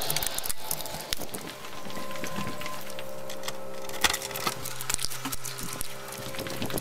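Keys jingling and clicking in a door lock as the door is unlocked and pushed open, with scattered rattles and clunks. A sharp knock comes about four seconds in, after which a steady low hum sets in.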